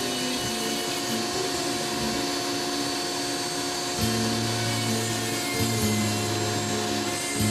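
Foredom flex-shaft rotary tool with a carbide burr grinding into white cedar: a steady high whir and rasp as the bit removes wood from a decoy head. Background music with held low notes plays under it, growing stronger about halfway through.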